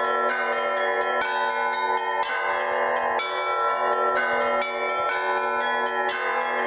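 Russian Orthodox church bells rung in an improvised peal: a fresh strike every fraction of a second, many bell tones overlapping and ringing on without a break.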